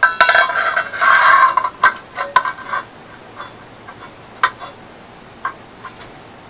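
Steel exhaust pipe being pushed and knocked into the end of a rectangular steel tube muffler body. Metal scrapes and rings for about a second and a half, then comes a run of clinks and taps that thins out to a few single ticks.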